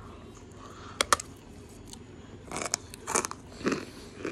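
A bite into a hard white chalk block: two sharp snaps about a second in, followed by loud crunchy chewing from about two and a half seconds in.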